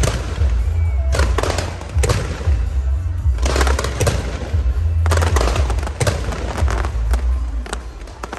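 Fireworks going off in quick clusters of sharp bangs and crackling, a new burst every second or so, over a constant deep rumble.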